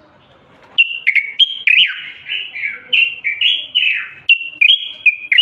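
Common bulbul singing a quick, near-continuous run of clear whistled notes that slur up and down in pitch, starting just under a second in.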